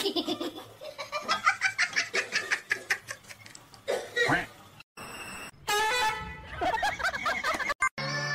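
Seals calling for food, many short honking calls that rise and fall in pitch, packed closely together for the first few seconds, with a short break about five seconds in.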